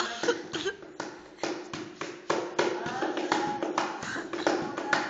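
A steady dance beat struck by hand, with sharp slaps or taps about three times a second and voices faintly underneath.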